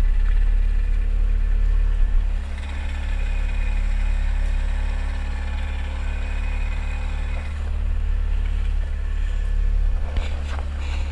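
Outboard motor running at a steady speed on a small open boat under way, with water rushing along the hull. A few sharp knocks about ten seconds in.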